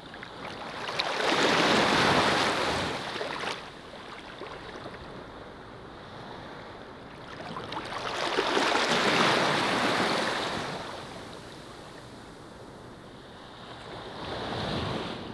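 Small waves washing up on a sandy beach: two long swells of surf about six seconds apart, the first cutting off fairly sharply, then a shorter, quieter one near the end.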